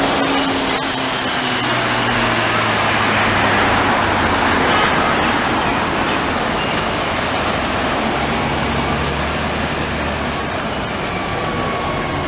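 Steady city street traffic: cars passing and a hybrid-electric transit bus running close by as it pulls away, with a low engine hum that comes and goes.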